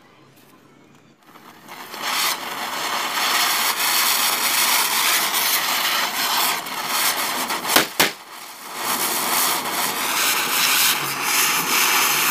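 Diwali fireworks going off: a flowerpot fountain (anar) hisses steadily as it sprays sparks, starting about two seconds in. Two sharp bangs come close together about eight seconds in, then a ground spinner (chakri) hisses as it whirls.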